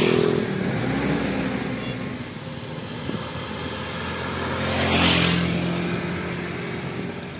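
Motor scooters passing on a road: one fades away at the start, and another passes close about five seconds in, its engine and tyre noise swelling and then dying away.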